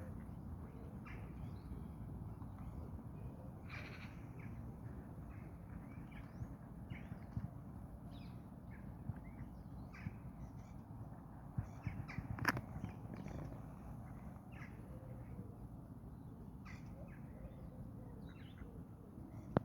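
Birds calling, many short calls scattered through, over a steady low background rumble, with one sharp click about twelve seconds in.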